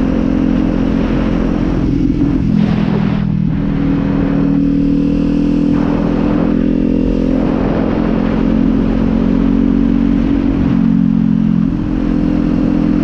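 Kawasaki Z400's parallel-twin engine running as the bike is ridden, with a steady engine note that steps down in pitch a couple of seconds in, dips again near the end and then comes back up.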